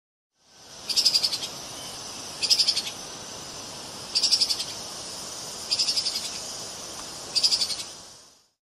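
A small animal's call: five short, rapid trills of evenly spaced pulses, repeated about every second and a half over a steady hiss.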